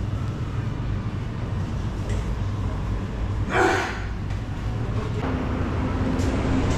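Café interior ambience: a steady low hum, with one short burst of noise about halfway through and a steady mid-pitched hum joining near the end.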